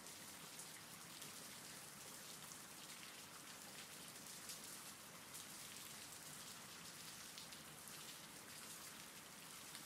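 Faint, steady rain: an even hiss of many small drops falling.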